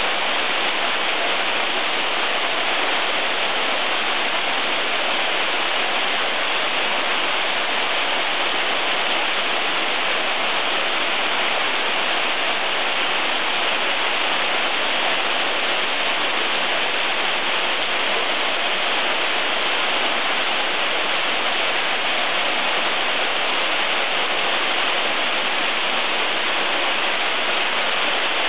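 Mountain waterfall: the steady, unbroken rush of water falling into its pool.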